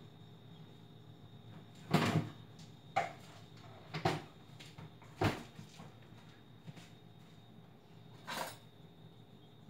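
Scattered knocks and clatter of kitchen things being handled, opened and set down: five short knocks about a second apart, then one more after a pause. A faint steady high tone runs underneath.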